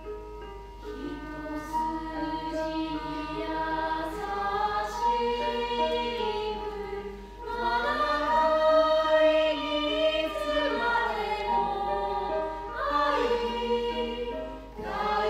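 A small chorus of voices singing together in held notes. The singing breaks off briefly about halfway through, then comes back louder.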